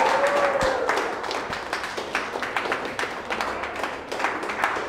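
A small group clapping by hand, thinning gradually over a few seconds, with one drawn-out voice calling out in the first second.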